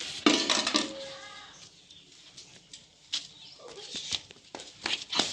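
Calf's hooves tapping and clattering unevenly on a hard floor. A short voice-like call comes about half a second in, and is the loudest thing.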